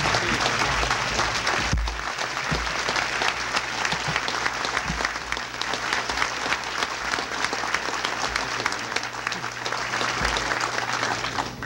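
Large audience applauding steadily, many hands clapping at once, fading down right at the end.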